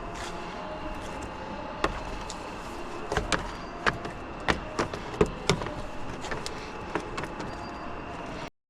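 Irregular light clicks and knocks of tools and metal or plastic parts being handled while car parts are taken apart, over a steady background hum. The sound cuts off suddenly near the end.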